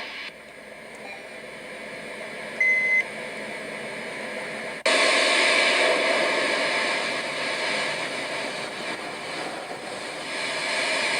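Steady jet airliner engine noise with one short electronic beep about two and a half seconds in; about five seconds in, the engine noise jumps suddenly louder and stays there.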